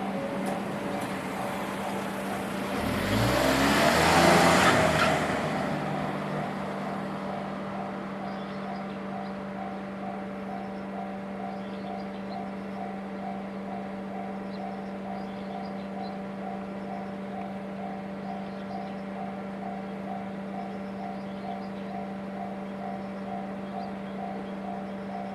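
Japanese railway level-crossing warning bell ringing steadily at about two strokes a second over a steady low hum. About three seconds in, a loud rush swells and fades as something passes.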